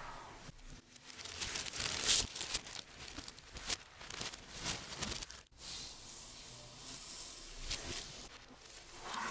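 Packaging being handled during an unboxing: irregular crinkling, rustling and tearing, with a brief pause about five and a half seconds in.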